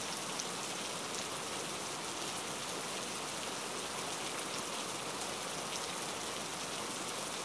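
Oil, soy sauce and white vinegar sizzling steadily in a frying pan while the chillies, garlic and sesame seeds are stirred.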